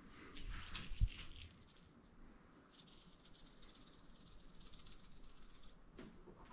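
Cat clambering on a carpeted cat tree: a few soft clicks and a short thump about a second in, then a faint, high scratchy rustle for about three seconds as its claws work the post and fabric.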